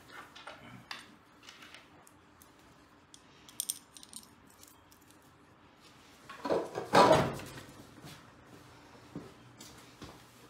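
Small metal engine parts clinking and being handled on a workbench: scattered light clicks, a ringing clink partway through, and a louder scraping knock a few seconds later.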